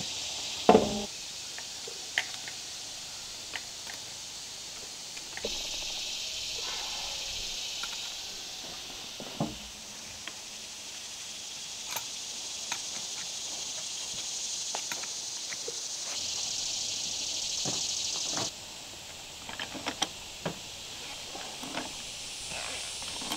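Scattered metallic clicks and knocks of a pipe wrench and brass gas fittings being worked onto a pipe riser, the loudest knock about a second in. Under them runs a steady high-pitched insect chorus.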